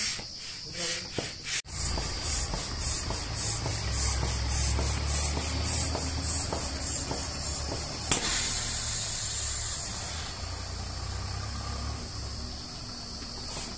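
Air pump running, blowing air through a hose into an Intex inflatable pool: a steady rushing hiss over a low hum. There is a brief break a couple of seconds in, and the hiss turns brighter about halfway through.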